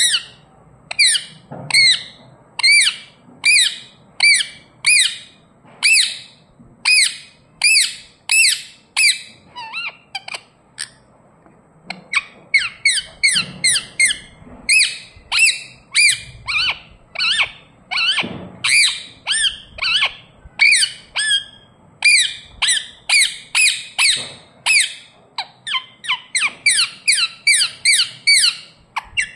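Indian ringneck parrot calling over and over in short, high-pitched squawking chirps, about two a second, with a short pause about ten seconds in.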